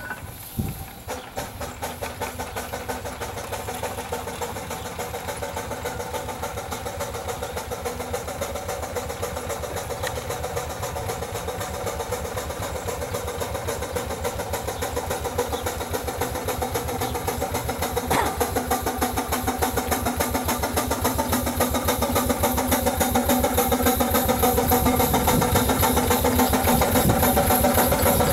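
Scale Wood Brothers 22/70 steam traction engine running, its exhaust beating in a quick, even rhythm that grows steadily louder as it draws near.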